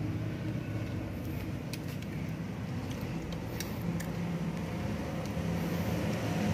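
A steady low mechanical hum, with a few faint light clicks as a hex key is worked on a motorcycle bar-end mirror's fitting.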